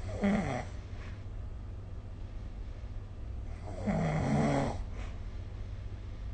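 A sleeping person snoring: two snores about three and a half seconds apart, the second longer, over a steady low hum.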